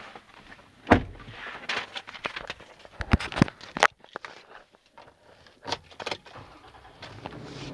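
Handling knocks and clicks inside a pickup truck's cab: a hard knock about a second in, then a quick cluster of sharp clicks and taps around three to four seconds in, with rustling between.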